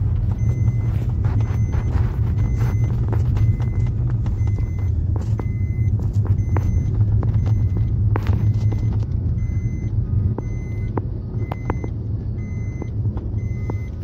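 Car driving slowly, heard from inside: a steady low engine and road rumble, with scattered sharp ticks and taps and a faint, evenly repeated high beeping.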